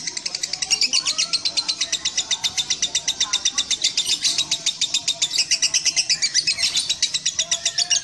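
Lovebird chattering without a break: a fast, even string of shrill notes at about ten a second. This is the long continuous 'ngekek' song that contest lovebirds are judged on for its duration.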